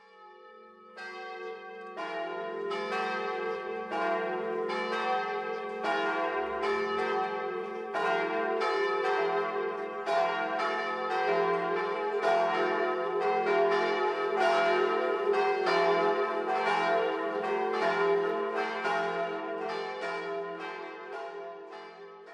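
Church bells ringing in a peal, about two strikes a second, their hum lingering underneath. It fades in at the start and fades out at the end.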